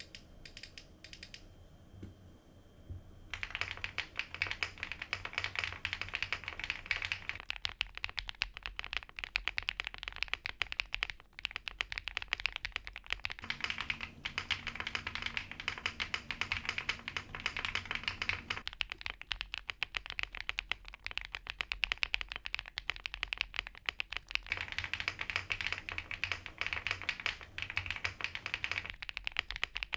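Fast, continuous typing on a Weikav D75 mechanical keyboard: a dense run of key clacks that starts about three seconds in, after a few single key clicks.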